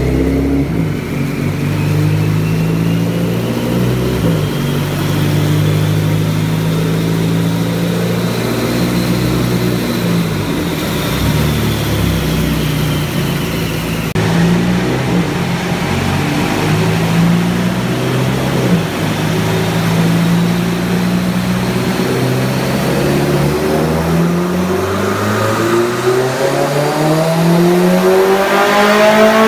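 Mitsubishi Lancer Evolution X turbocharged 2.0-litre inline-four (EFR7163 turbo) running on an all-wheel-drive chassis dyno. It is held at fairly steady revs under load with a few breaks, while a thin high whine rises and falls. About 24 seconds in it revs up steadily under load through the end.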